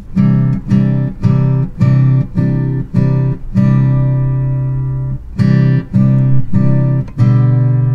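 Background music of a guitar strumming chords, about two strums a second, with one chord held longer in the middle and another near the end.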